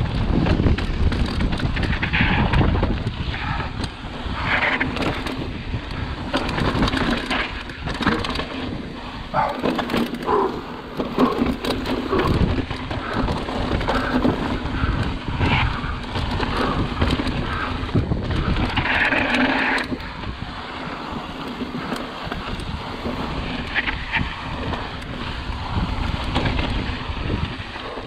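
Mountain bike descending a dry dirt and rock trail: tyres crunching over gravel and rock, with the bike rattling and clacking over bumps throughout. Wind rumbles on the microphone.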